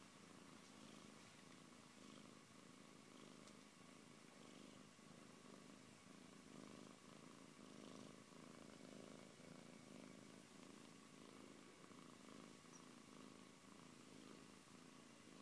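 Siberian cat purring, faint and steady.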